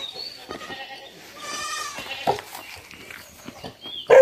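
A farm animal bleats once, a short quavering call about a second and a half in, over faint footsteps on a dirt trail.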